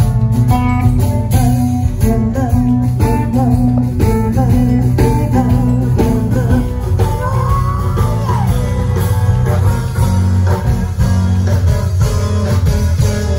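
Live band playing guitar music over a strong low bass line.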